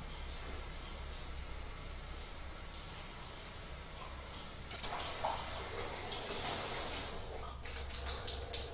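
Shower running, water spraying steadily onto a tiled stall, louder from about five seconds in. A few knocks come near the end.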